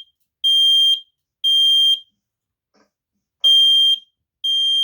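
BRK 3120B dual-sensor smoke alarm sounding on test: loud, high-pitched half-second beeps in the temporal-three pattern, three beeps, a pause of about a second and a half, then three more.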